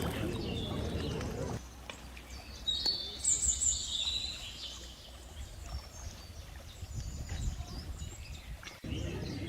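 Birds chirping in a short high burst of gliding calls about three seconds in, over outdoor background noise; a low rumbling noise fills the first second and a half and returns near the end.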